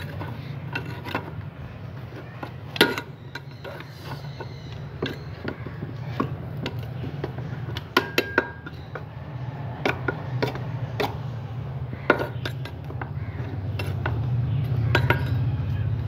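Metal hand tool loosening dry, hardened potting soil in flower pots: irregular scraping with sharp clinks and knocks, the loudest about three, eight and twelve seconds in, over a steady low hum.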